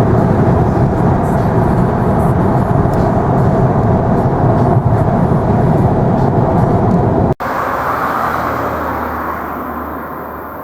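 Steady rumble of a moving car. It cuts off abruptly about seven seconds in and gives way to a softer rushing noise that slowly fades.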